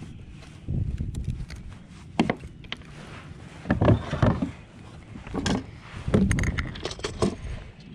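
Irregular knocks, clatters and rattles of fishing gear and a fish being handled on a plastic kayak, loudest about halfway through and again a little later.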